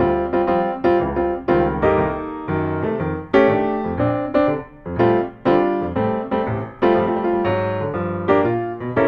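Background piano music: a melody with chords, notes struck one after another and fading.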